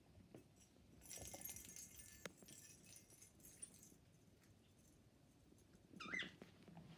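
Faint rustling of a Shih Tzu puppy wriggling against a blanket and a plush toy, with a single click partway through. Near the end comes one brief high squeak that bends in pitch.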